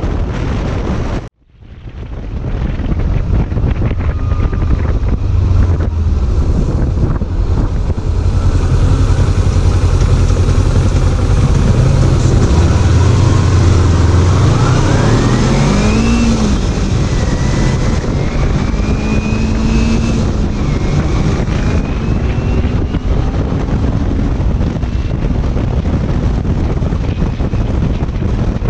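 Kawasaki Ninja 250's parallel-twin engine running on the road under heavy wind rush on the microphone. About halfway through, the engine pitch rises as the bike accelerates, then holds steady at cruise. The sound drops out briefly just over a second in.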